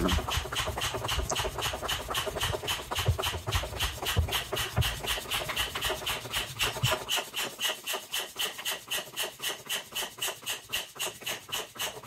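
Hand air pump with a pressure gauge worked in quick, even rasping strokes, about four a second. It is pumping air into a combi boiler's expansion vessel to recharge it from zero pressure.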